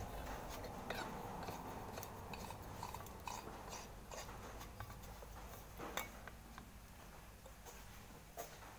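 Faint scattered clicks and light clinks of small handling noises over a low steady hum, the background fading slightly.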